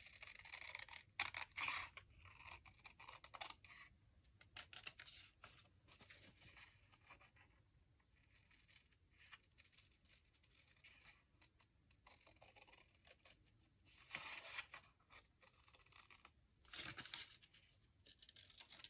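Scissors trimming paper: faint runs of snipping and paper rustle, a quieter stretch in the middle, then two more short runs near the end.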